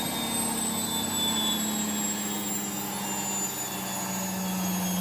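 Siemens washing machine drum and motor spinning down from a high-speed 1380 rpm spin after being switched off, a steady whine slowly falling in pitch.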